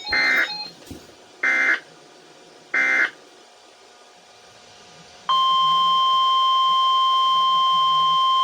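Three short bursts of SAME digital alert-header data, each about half a second long and a little over a second apart. About five seconds in, a loud, steady single-pitch Weather Alert Tone begins. Together they are the start of an Environment Canada Weatheradio severe thunderstorm warning broadcast.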